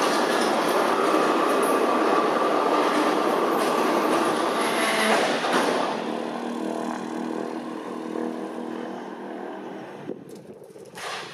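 Diamond DA40 light propeller plane on its landing approach, heard from the ground: a steady engine and propeller drone mixed with rushing noise, fading over the second half. A couple of short knocks come near the end.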